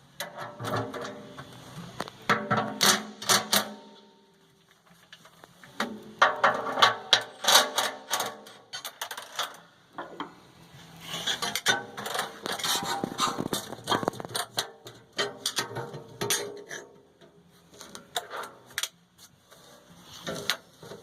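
Metal parts of a roller mill being handled and adjusted by hand: clinks, rattles and scrapes of a steel slide, its bolts and tools. They come in spells of a few seconds with quieter pauses between.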